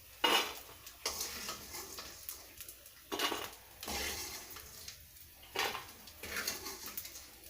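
A spoon scraping and clinking against a cooking pan as fried gond is scooped out of the ghee, in a few separate strokes, the loudest right at the start.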